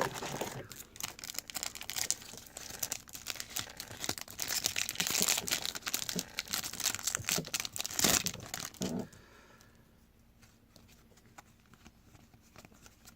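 A trading-card pack wrapper crinkling and tearing as it is opened, a dense run of crackles that stops about nine seconds in.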